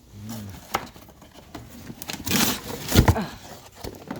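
Handling of a newly unboxed hydraulic trolley jack and its cardboard packaging: scattered clicks, a rustle about two seconds in, and a loud knock about three seconds in.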